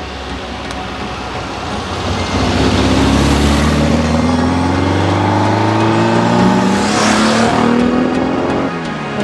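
Car engine accelerating, its pitch climbing steadily for several seconds, then dropping briefly near the end at a gear change before it climbs again.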